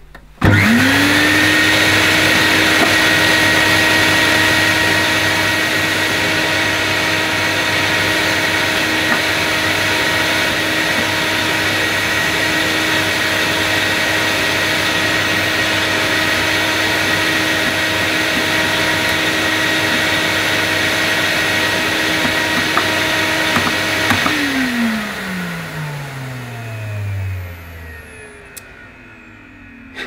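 Electrolux Masterlux 3-in-1 wet-and-dry vacuum cleaner's motor switched on, spinning up within half a second to a steady high whine. It runs for about 24 seconds, then is switched off and runs down, falling in pitch over a few seconds. No pump sound is heard over it: the shampoo solution pump is not working.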